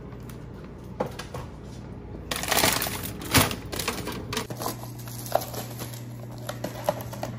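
Food packages in plastic and cardboard rustling, crinkling and knocking as they are handled, with a sharper knock a little over three seconds in. A low steady hum runs underneath.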